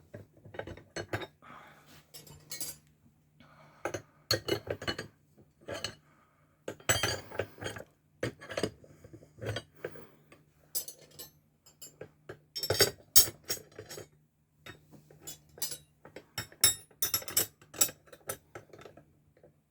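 Steel wrenches clinking and clanking against a Brinks 40 mm padlock as they are levered on its shackle to break it. The sound comes as irregular clusters of sharp metallic clicks and knocks.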